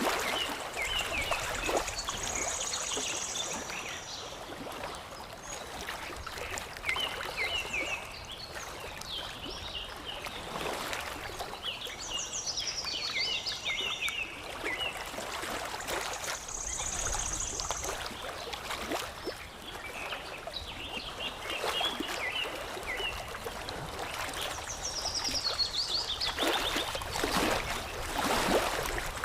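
Water lapping and trickling with soft splashes, while small birds chirp in short repeated phrases, one giving a high buzzy trill several times.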